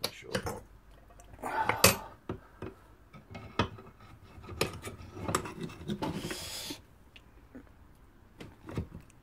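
Steel tools clinking and knocking against a heated motorcycle footrest bracket clamped in a vice, as a screwdriver and a bar are fitted into it and levered to twist the bent part. Irregular sharp knocks with a short hiss a little after six seconds.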